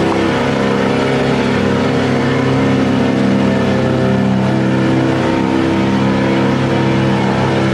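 Fishing boat's outboard motor running at a steady speed, with a steady hiss over it.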